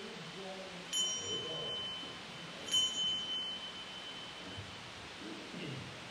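A small metal chime struck twice, about two seconds apart, each strike ringing out clearly for a second or two before fading.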